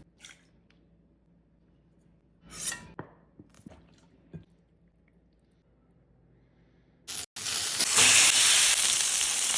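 A few faint kitchen clinks and small knocks, then about seven seconds in a loud hissing sizzle starts and holds steady: food or sauce frying in a hot pan.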